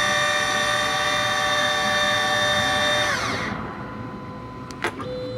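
Miracle A7 Plus key machine's cutter spindle motor whining steadily while cutting a key, then spinning down with a falling whine about three seconds in. A sharp click follows, and a steady tone starts near the end.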